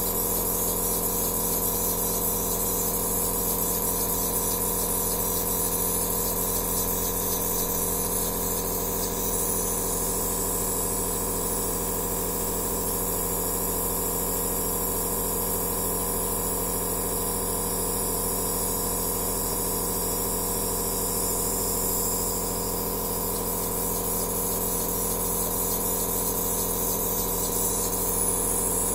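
Compressor nebulizer (aerosol therapy machine) running steadily: a constant motor hum under a high hiss of air.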